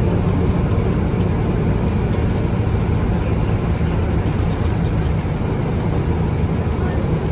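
Cabin sound of a BCI Citirider 12 city bus under way: its Cummins ISB 6.7 diesel engine runs steadily under the road and tyre rumble.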